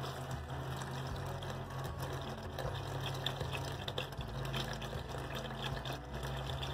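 Chicken broth pouring in a steady stream into a hot enamelled cast-iron Dutch oven of diced potatoes, splashing and trickling onto the food, over a low steady hum.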